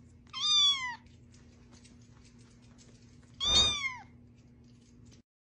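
Kitten meowing twice, about three seconds apart: two short, high meows, each falling in pitch at the end.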